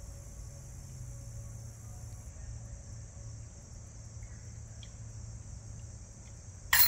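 Insects, crickets or similar, droning steadily in a high, even tone over a low rumble, cut into just before the end by a sudden loud noise.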